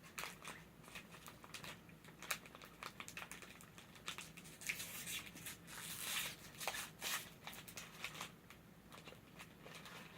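Snack packaging being handled and opened: faint, irregular crinkling and tearing of a wrapper, busiest in the middle.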